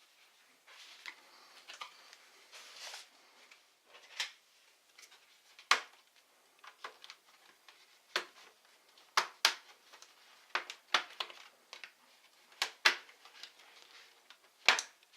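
Hand disassembly of a Lenovo IdeaPad 700-15 laptop: a few seconds of soft scraping, then about a dozen sharp plastic clicks and taps at irregular intervals as the case and its parts are worked.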